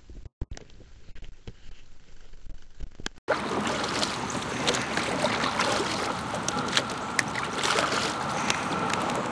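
Water lapping and splashing against the hull of a small drifting boat, with scattered small knocks and clicks. For about the first three seconds the sound is fainter and muffled, then it cuts in suddenly louder.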